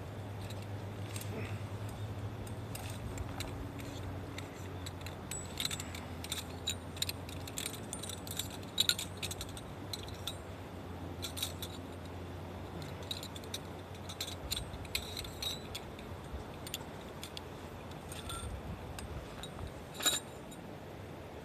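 Light metallic clinking and jingling, many small clicks in irregular clusters, over a steady low hum.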